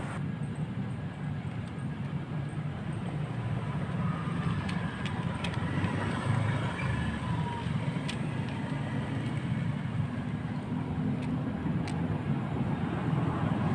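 Steady low rumble of motor traffic, with a few faint scattered clicks.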